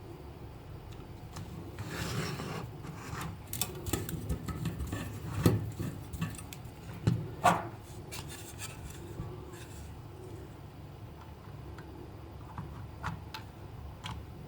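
Rubbing and scraping with scattered clicks, and a few louder knocks about halfway through.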